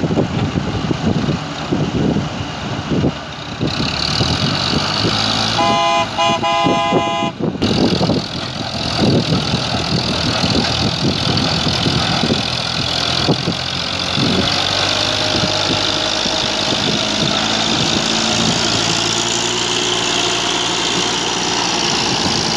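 Massey Ferguson 240's three-cylinder diesel tractor engine running under heavy load, pulling a loaded trolley. A horn blows for about two seconds about six seconds in.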